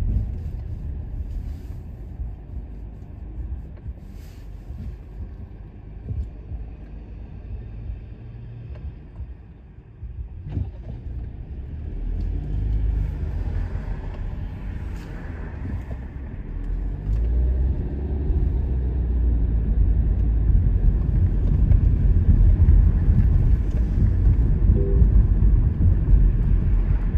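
Car's engine and road noise heard from inside the cabin: a low rumble, quieter while waiting at a stop, growing louder from about twelve seconds in as the car pulls away and drives.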